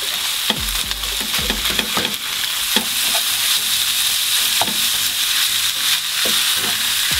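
Pork mince frying in a pan with a steady sizzle, while a wooden spatula chops and stirs it with repeated knocks and scrapes against the pan. The knocks come several a second at first, then less often.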